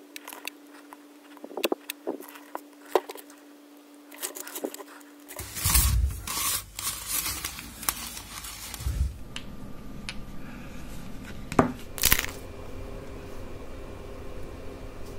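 Handling noises of polystyrene foam model-boat parts on a workbench: scattered light clicks and taps over a faint steady hum, then louder rustling and scraping of foam from about five seconds in, with two sharp knocks near the end.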